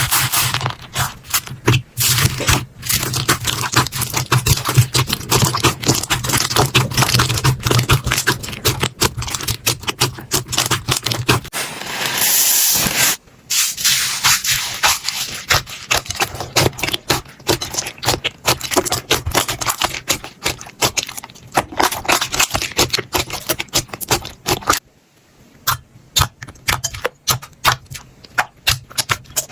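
Slime being squeezed, stretched and poked by hand, giving a dense run of rapid clicks and crackles, with a short hiss about twelve seconds in and a brief lull near the end.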